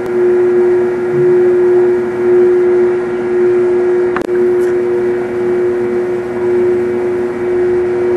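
Top/bottom split-belt wipe-on labeling machine running, its conveyor motors giving a steady, loud electric hum, with a short click about four seconds in.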